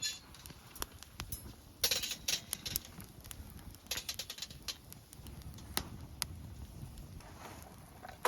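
Wood campfire crackling: irregular sharp pops and snaps, with a few short clusters of crackle, over a low rumble.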